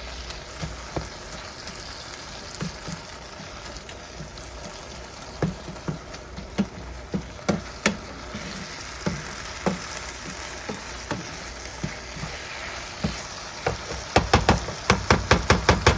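Ground beef and black beans sizzling in a frying pan, with a utensil tapping and scraping against the pan as the meat is chopped and stirred. A quick run of taps comes near the end.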